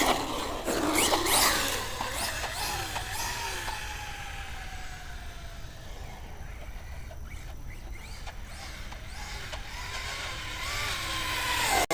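Radio-controlled 1/10-scale Pro-Line Pro-MT 4x4 monster truck running: loud motor and tyre noise in the first second or two, then a motor whine that falls slowly in pitch and fades as the truck gets farther away, with a whine rising again near the end.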